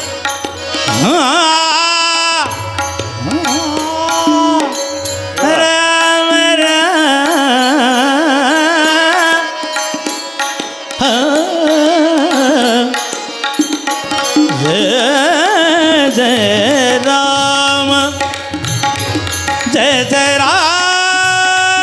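Varkari devotional bhajan: a male singer holding long notes that bend and glide, with tabla and small hand cymbals keeping time.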